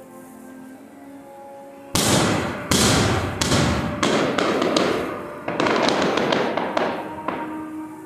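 Fireworks going off: a rapid string of loud bangs starting about two seconds in, each with a crackling tail, over faint background music.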